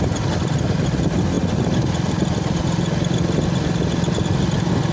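Motorcycle engine running steadily while riding along the road, a continuous low hum with no change in speed.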